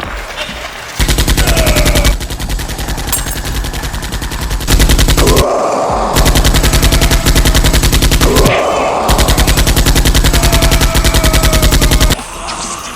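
Rapid automatic gunfire in several long bursts, dubbed in as sound effects for a Nerf blaster gunfight, stopping about twelve seconds in.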